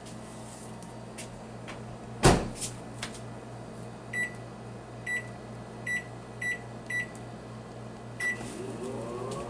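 Microwave oven door shut with a single loud clunk, followed by six short keypad beeps at one pitch as the cooking time is set.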